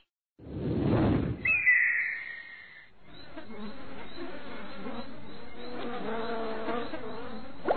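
A rushing whoosh, then a high screech lasting about a second and a half, then a steady buzzing drone of insects.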